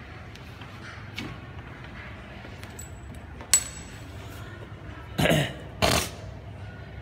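A sharp metallic clink with a brief high ring, then two loud coughs a little over half a second apart from a man with a head cold.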